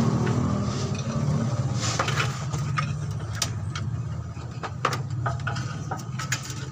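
Scattered sharp metallic clicks and knocks of a hand wrench on the bolts of a clutch cover (pressure plate) as it is loosened and taken off, over a steady low mechanical hum.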